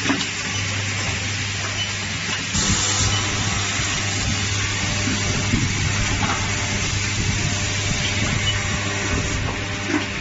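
Automated assembly machine running: a steady hiss of air over a constant electrical hum, with a few light clicks. The hiss turns brighter about two and a half seconds in and eases near the end.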